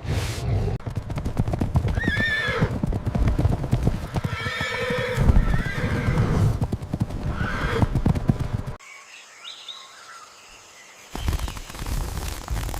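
Horses whinnying three times over a dense clatter of hoofbeats; the hoofbeats drop away for about two seconds near the end, then return.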